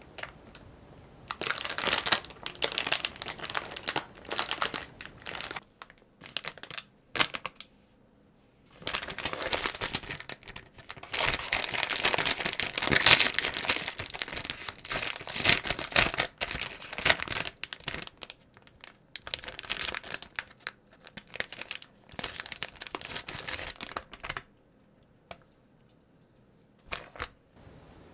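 Plastic ice cream bar wrapper crinkled and torn open by hand, in bursts of crinkling with short pauses between them. It stops a few seconds before the end, leaving only a few faint clicks.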